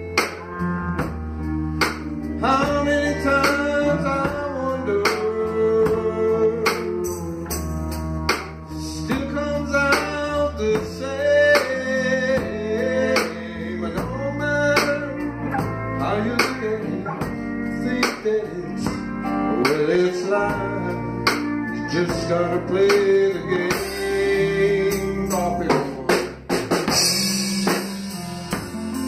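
Live band playing a slow blues-soul ballad: electric bass, electric guitar and drum kit, with a man singing the melody.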